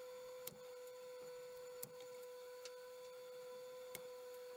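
Steady hum from an idle 3D printer, with three light clicks as printed plastic parts are picked up and handled.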